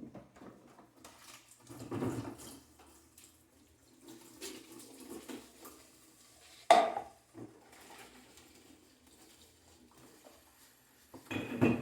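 Dishes and utensils clattering while being washed at a kitchen sink, with water running from the tap. One sharp clank about seven seconds in, and a few more clatters near the end.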